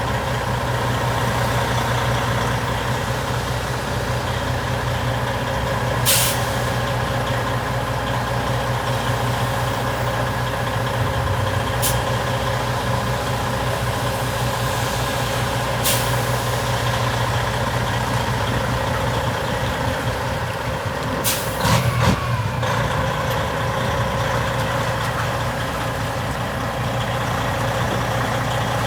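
Tractor-trailer's diesel engine running steadily at low speed while maneuvering, with short, sharp air-brake hisses every few seconds; the loudest is a double hiss about three quarters of the way through.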